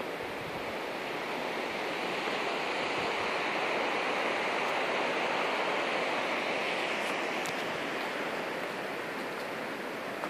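Steady rushing of flowing water, swelling a little in the middle and easing toward the end.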